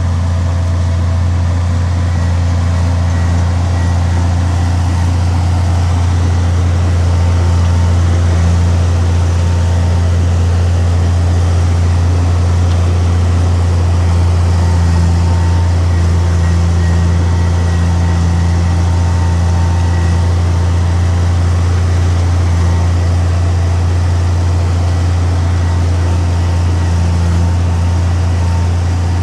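Heavy diesel engine of earthmoving machinery running steadily, a constant loud low drone that neither rises nor falls.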